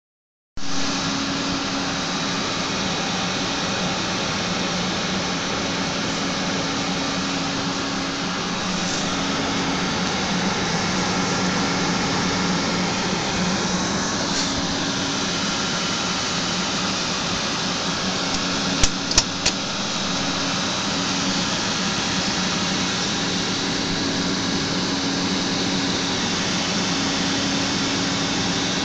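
Computer cooling fans running with a steady whir and a low hum. Three quick clicks come about two-thirds of the way through.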